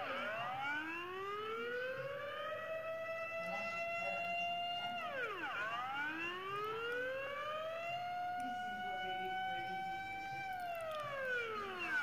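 Dutch air raid siren sounding its wail: the pitch rises, holds steady for a couple of seconds, falls, then rises and holds again before falling near the end.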